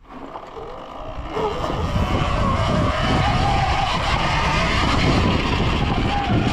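Surron Ultra Bee electric dirt bike setting off and riding, its electric motor and drivetrain whining under a rush of wind and trail noise that builds over the first two seconds and then holds steady.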